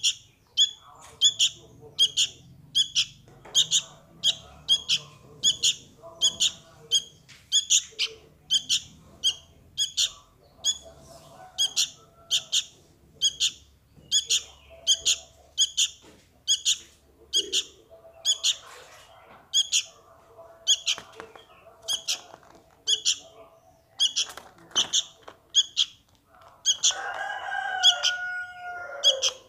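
Fledgling sooty-headed bulbul giving its begging call to its parent: short, high calls repeated steadily over and over. Near the end a longer, lower call slides downward over them.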